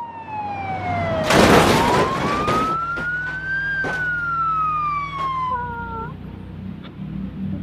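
Slow wailing siren of a toy ambulance, falling in pitch, then sweeping up and back down once in one long rise and fall. A loud burst of noise cuts across it between about one and three seconds in.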